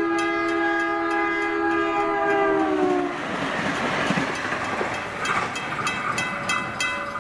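Freight train's locomotive horn sounding one long chord, its pitch dipping slightly just before it cuts off about three seconds in. After it, the rumble of the passing train with the level crossing's mechanical bell ringing in rapid strokes.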